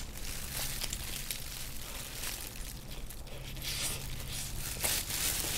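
Plastic crinkling and rustling with biting and chewing close to the microphone, as a slice of gorgonzola pizza is held in a plastic glove and eaten.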